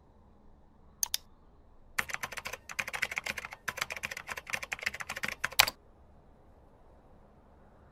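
Typing on a computer keyboard: two keystrokes about a second in, then a quick run of keystrokes for nearly four seconds, ending with one louder key press.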